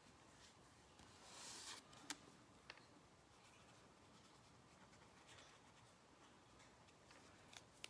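Near silence with the faint scratch of coloring on paper: one longer stroke about a second in, then two light clicks.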